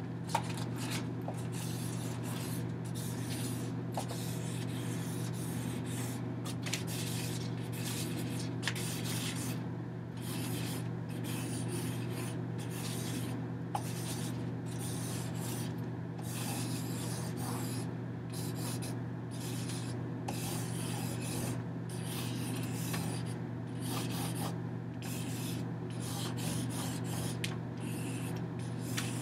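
Irregular rubbing and scratching strokes of a drawing tool across a large sheet of paper, over a steady low electrical hum.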